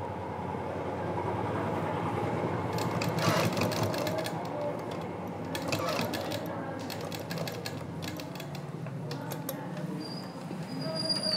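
Black straight-stitch sewing machine running steadily as a zipper is stitched into a lehenga's side seam, with a few clicks from the fabric and machine being handled.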